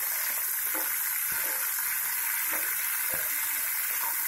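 Cubed capsicum, onion and tomato sizzling steadily in hot oil in a metal kadhai as they are stirred, with a few faint knocks scattered through it.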